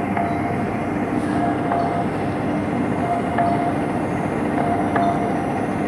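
Belt conveyor in a cement packing plant carrying filled cement bags, its belt and rollers running steadily with a short whine that comes and goes every second or two.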